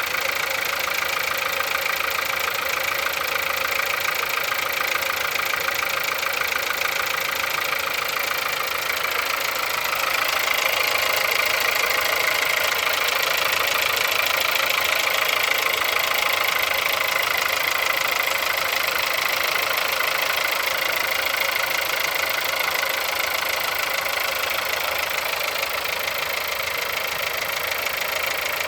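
Car engine idling shortly after a cold start, with a knock from inside the engine running through the idle. It grows a little louder about ten seconds in.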